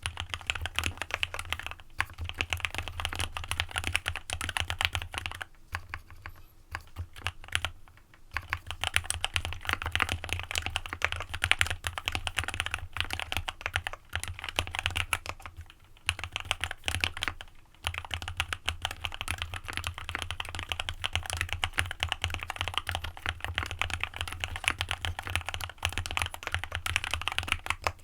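Fast, continuous typing on a custom mechanical keyboard, an AJAZZ x VARO AC067 fitted with lubed linear Alpaca switches and a PE foam mod, giving dense rapid keystrokes with short pauses now and then.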